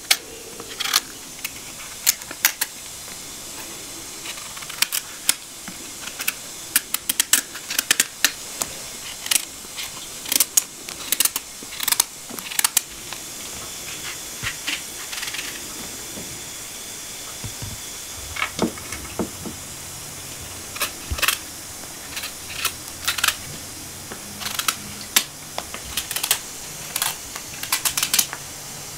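A kitchen knife paring the hard rind off pumpkin slices: irregular crisp cutting and scraping clicks, over a steady background hiss.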